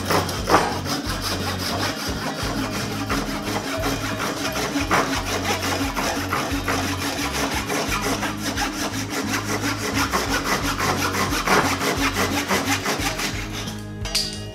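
Hand saw cutting through the end of a hickory axe handle and its wedge where they stick out above the head, in rapid, even rasping strokes that stop near the end.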